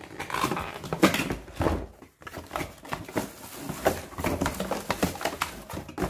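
Cardboard packaging and plastic-wrapped parts being handled and shifted about in a shipping carton: irregular scrapes, knocks and rustles, with a brief pause about two seconds in.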